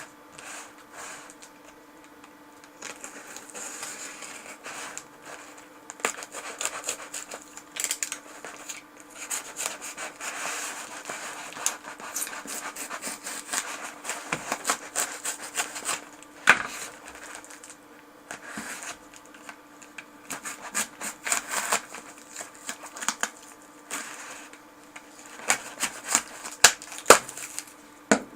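Hands handling a wirewound potentiometer: irregular rubbing and scraping with scattered sharp clicks, the loudest clicks near the end, over a faint steady hum.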